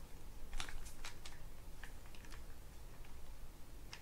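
Small, sharp, irregular clicks and ticks from a Penn Spinfisher 704Z spinning reel as its handle is twisted and unscrewed from the reel body.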